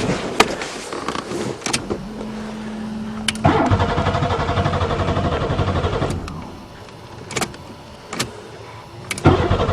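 Buick Regal's starter cranking the engine, which turns over without catching, for about two and a half seconds. A pause with a few clicks follows, and the cranking starts again near the end. A short steady buzzing tone comes just before the first crank.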